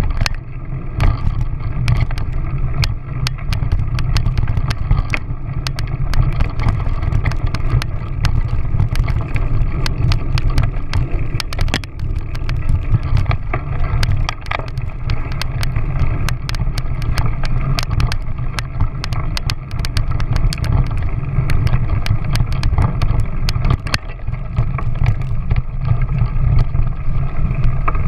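Wind buffeting the microphone of an action camera moving along a bumpy dirt track, a steady low rumble broken by many small clicks and rattles from the ride over the ruts.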